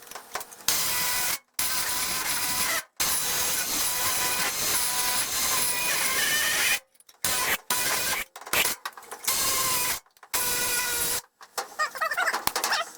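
Power saw cutting car-body sheet metal, running in long steady stretches that stop abruptly, then in short start-stop spurts.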